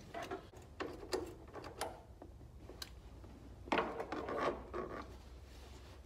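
A new lap seat belt and its mounting hardware being worked into place by hand with a wrench: rubbing and scraping with scattered sharp clicks and knocks, and a louder stretch of scraping about four seconds in. A low steady hum runs underneath.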